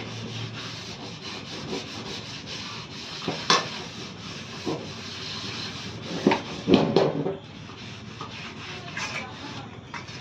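A metal cooking pot scrubbed by hand with a scrubber: a steady scratchy rubbing. Steel utensils clank a few times, loudest in a cluster a little past halfway.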